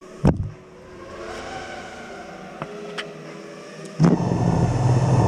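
A racing quadcopter's motors humming with several rising tones, broken by a few sharp clicks. About four seconds in comes a thud as a foot lands on a longboard, then a louder steady low hum.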